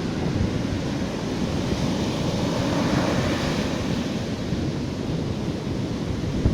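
Sea surf washing steadily onto the shore, with wind buffeting the microphone, swelling slightly about three seconds in.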